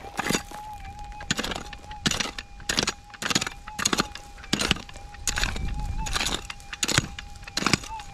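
A hand pick digging into hard, stony ground to recover a detector target, striking about a dozen times at an even pace. Under the strikes a steady mid-pitched electronic tone from the metal detector wavers slightly now and then.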